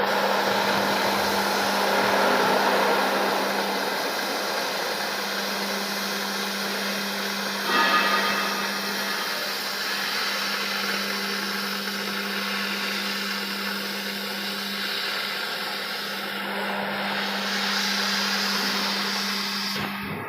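CNC machine running: a steady whirring noise over a constant low hum, briefly louder about eight seconds in.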